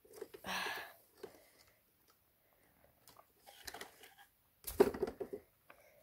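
Rustling and knocking in a guinea pig cage as a hand handles a guinea pig on a wooden log bridge over straw bedding. There is a short burst of rustling about half a second in and a louder knock and rustle near five seconds.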